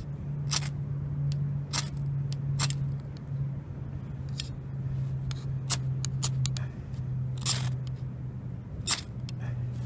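Ferrocerium rod struck again and again to throw sparks onto fire-starter fibres, about eight short sharp rasps at irregular intervals, one of them longer past the middle. A steady low hum runs underneath.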